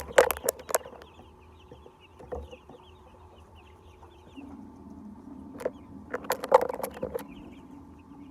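A flock of chickens clucking and calling, with many small high calls throughout. Two clusters of loud, sharp noises come in the first second and again about two-thirds of the way in.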